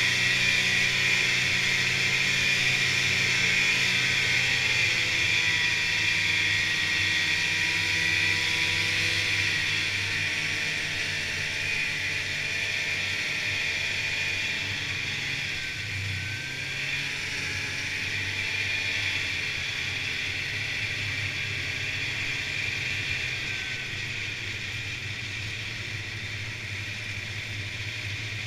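Snowmobile running along a trail, heard from on board: a steady engine drone under a strong high hiss, its pitch drifting gently up and down with the throttle. It gets a little quieter in the last few seconds.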